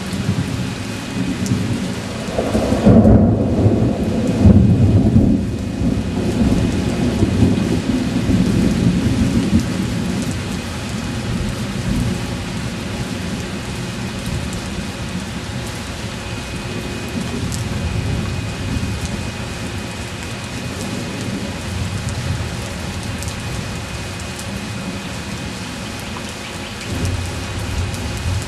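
Thunder rolling and rumbling, loudest about three to five seconds in, then fading to a lower steady rumble over a constant hiss of rain and storm noise.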